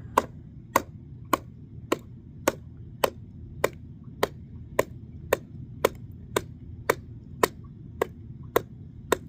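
Hatchet chopping kindling in quick, even strokes, a sharp crack about every half second.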